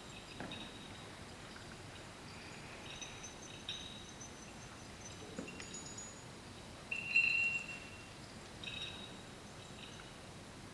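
Sparse, faint high-pitched chime-like tones, each held for under a second, with a few light clicks between them, from a contemporary new-music ensemble performance; the loudest tone comes about seven seconds in.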